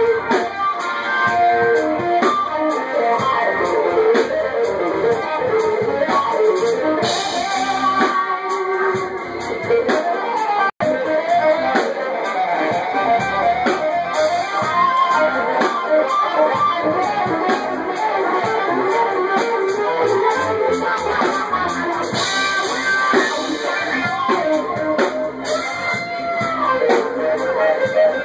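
A live band playing, led by guitar, recorded through a phone's microphone. The sound drops out for an instant about eleven seconds in.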